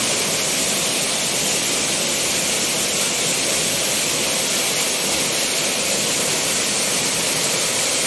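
A waterfall about 20 metres high falling into its pool: a steady, unbroken rush of falling water.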